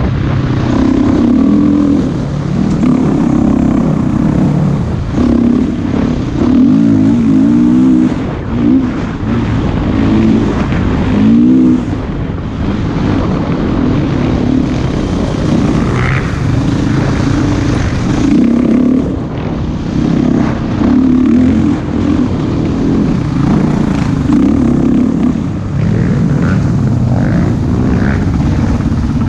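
Husqvarna TE510 enduro dirt bike's single-cylinder four-stroke engine, heard close up from the rider, revving up and down as the throttle is opened and rolled off through the trail's turns, with brief lulls where it backs off.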